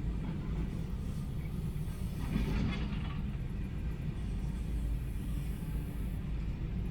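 Heavy diesel excavator and dump truck engines running with a steady low rumble. A short burst of noise rises over it about two and a half seconds in.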